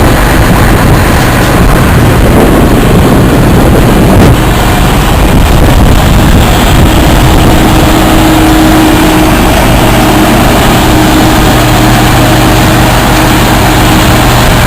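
Combine harvester running while harvesting soybeans: a loud, steady machine din with a constant low hum.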